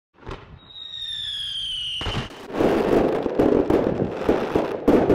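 Fireworks: a shot launched with a brief rising whoosh, then a high whistle that slowly falls in pitch for about two seconds. After that comes a dense run of loud crackling and popping bursts.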